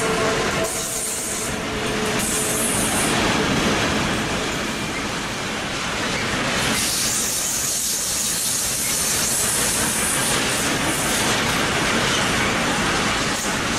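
A long freight train of open wagons rolling past close by, its wheels on the rails making a steady rumble and hiss that gets brighter about halfway through.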